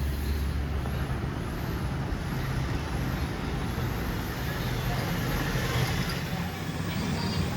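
Steady motor vehicle noise.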